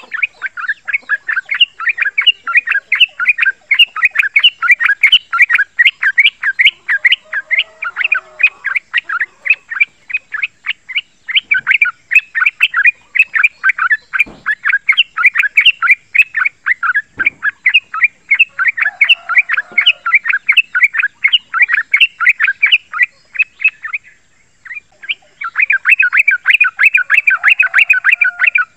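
A male yellow-vented bulbul singing a long, rapid rolling chatter of sharp repeated notes, several a second, breaking off briefly near the end before starting again.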